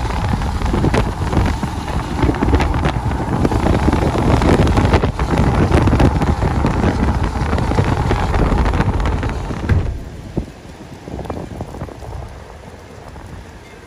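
Strong wind near a tornado buffeting the microphone, with rain. About ten seconds in it drops off abruptly to a much quieter, lighter wind noise.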